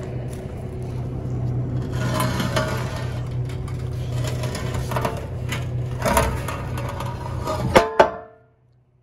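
A heavy truck engine idles with a steady low hum, joined from about two seconds in by scattered clanks and knocks on the lowboy trailer's steel and wood deck. Two sharp knocks come near the end, and then the sound cuts off abruptly.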